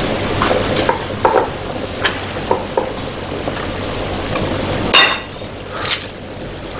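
Kitchen work sounds: a steady sizzle of frying under scattered clinks and knocks of utensils and pans, with one sharp clatter about five seconds in.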